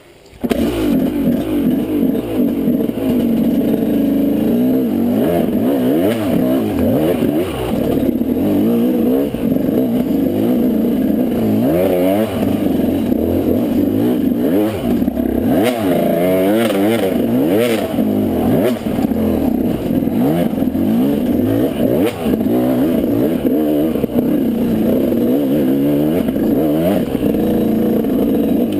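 KTM 200 two-stroke dirt bike engine, heard from the rider, revving up and down over and over as the throttle is worked, with the clatter of the bike over rough ground. The engine sound cuts in abruptly about half a second in.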